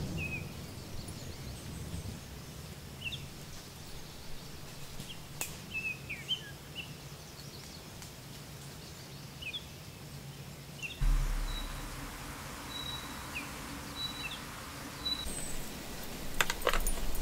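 Small songbirds chirping on and off over a steady background hiss and hum; the background changes abruptly about eleven seconds in. A sharp click comes about five seconds in, and a few more come near the end.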